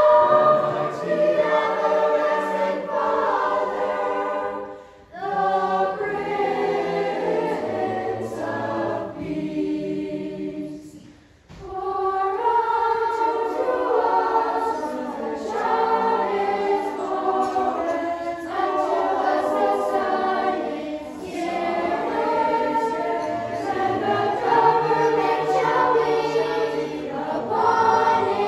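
Mixed choir of children, teenagers and adults singing unaccompanied, with brief pauses between phrases about five seconds in and again around eleven seconds in.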